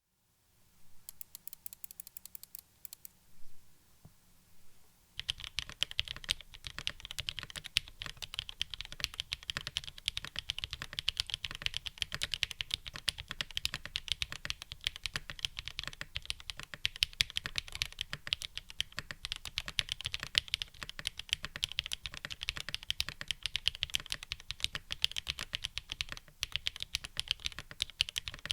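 Typing on a Geon Frog TKL custom mechanical keyboard with linear frankenswitches (Kailh Black stems in Cherry MX HG Black housings) on an FR4 half plate, with GMK keycaps. It starts with a few seconds of sparse, lighter key presses, then from about five seconds in settles into steady fast typing with many keystrokes a second.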